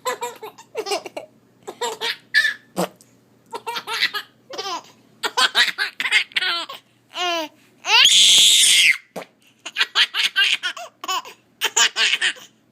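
A baby laughing in a rapid string of short belly laughs and giggles with brief pauses between them. About eight seconds in comes a louder, hissy burst lasting about a second.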